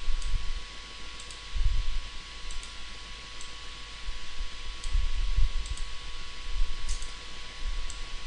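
Computer mouse clicking now and then, with faint sharp clicks, over a steady hiss and a low electrical hum. Irregular dull low thumps come and go several times.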